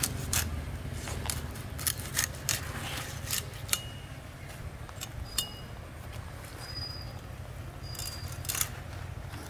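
Hilsa fish being cut into steaks on a boti, a curved blade fixed on a wooden block: sharp, irregular clicks and crunches. They come thick in the first few seconds and more sparsely after.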